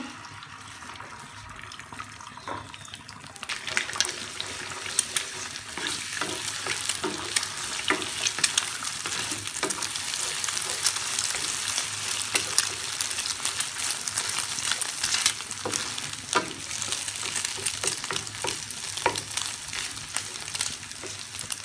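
Beaten eggs with chopped green chillies sizzling in hot oil in a non-stick pan, with a wooden spatula scraping and tapping against the pan as they are scrambled. The sizzling and stirring get louder a few seconds in.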